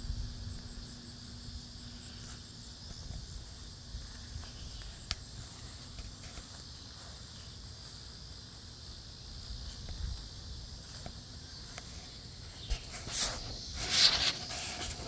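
Insects chirring steadily in the background of a quiet garden, with a fine, even pulsing high up. Near the end come a few loud bursts of rustling and phone-handling noise as a finger brushes over the phone.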